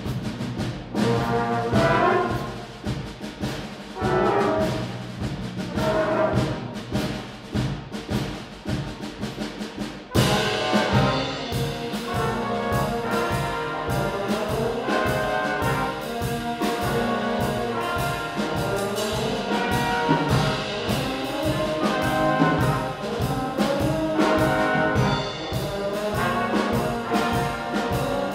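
Youth brass band playing. A lighter passage of short, separate phrases gives way about ten seconds in to the full band playing louder and fuller over a steady beat.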